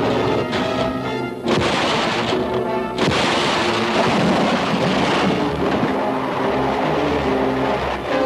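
Orchestral film score with two explosion blasts, about a second and a half in and again at three seconds, each followed by a rushing noise that fades over the next couple of seconds.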